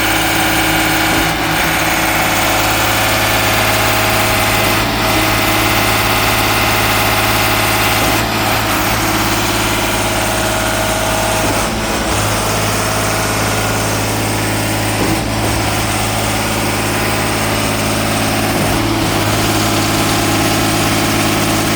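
Concrete pump running steadily while pumping concrete, its engine drone overlaid by a short knock that repeats evenly about every three and a half seconds.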